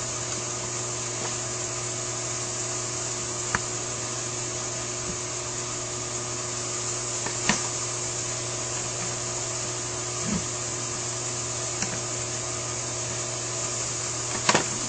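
A steady background hum and hiss, with a handful of light clicks from small metal carburetor linkage rods and arms being fitted by hand. The loudest clicks come about halfway through and again near the end.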